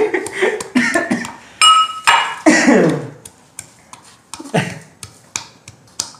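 Garlic being pounded with a pestle in a small steel mortar: sharp metallic clinks and knocks, one ringing clink about a second and a half in, then a run of repeated strikes a few times a second in the second half.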